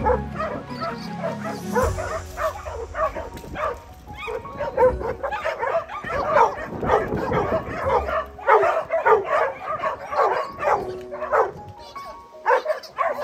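A pack of dogs barking excitedly, many at once and overlapping, with music playing underneath.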